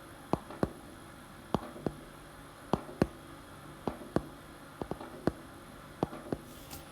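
Recorded heart sounds playing as the example of mitral valve prolapse: six lub-dub beats, one about every 1.2 seconds, with an extra click inside one beat about five seconds in, over a faint steady hum.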